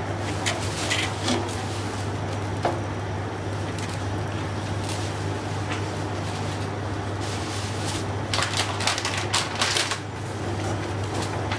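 Steel ladle stirring thin gram-flour (besan) batter in a non-stick pan, with scattered scrapes and clicks against the pan and a dense run of them about eight seconds in, over a steady low hum.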